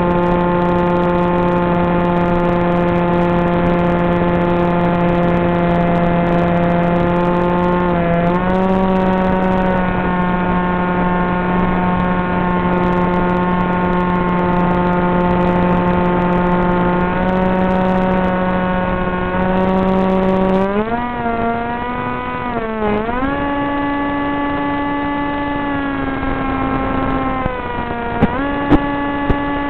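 Brushless motor and pusher propeller of a Wing Wing Z84 flying wing (Turnigy 2826-2200kv) in flight, a steady droning whine. Its pitch steps up about eight seconds in, then swoops down and up with wobbles as the throttle changes past the twenty-second mark, dipping once more near the end. A few sharp clicks come near the end.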